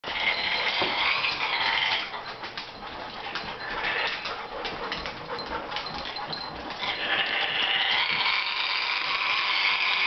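African grey parrot growling, a noisy grating sound in two long spells: over the first two seconds and again from about seven seconds in. It is a warning growl of displeasure at a new dog in the house.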